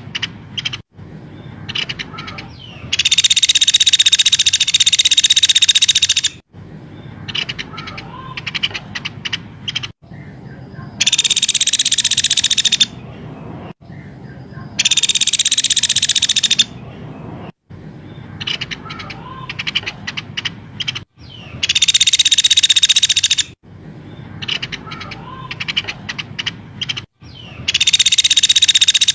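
Recorded songbird calls played as a looped training track. Five bursts of dense, shrill, rapid trilling, each two to three seconds long, alternate with spells of shorter chirps and whistles. The segments are joined by abrupt cuts.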